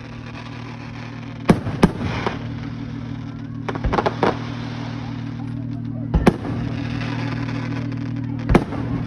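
Aerial fireworks going off: six sharp booms, a pair about a second and a half in, another pair around four seconds in, and single ones near six and eight and a half seconds in, with crackling between them. A steady low hum runs underneath.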